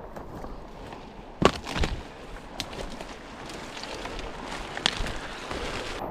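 Footsteps and cracking twigs and brush as someone pushes through dense scrub. Several sharp snaps stand out over steady background noise; the loudest comes about a second and a half in.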